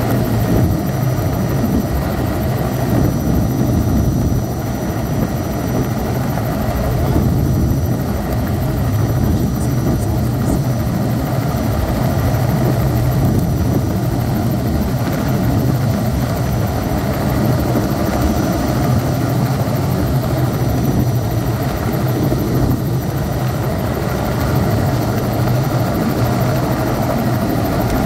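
Helicopter in flight, heard from inside the cabin: a loud, steady rotor and engine drone that does not change.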